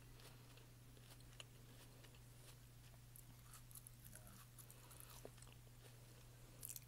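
Faint close-miked chewing with scattered soft mouth clicks, a small flurry of them near the end, over a steady low hum.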